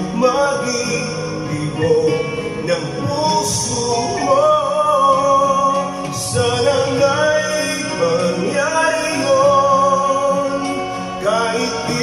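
A man singing into a handheld microphone over a backing track, holding long, wavering notes.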